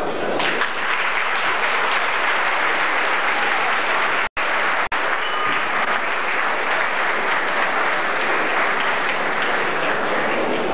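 Audience applauding steadily, with the sound cutting out twice, briefly, a little past the middle.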